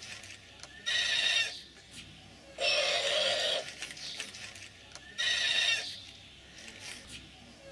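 Three animal-like cries, each under a second long, repeating about every two to two and a half seconds.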